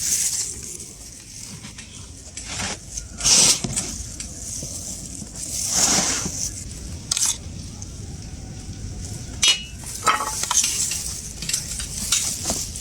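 Food sizzling in a pan, with a utensil scraping and clinking against the pan in a handful of separate strokes.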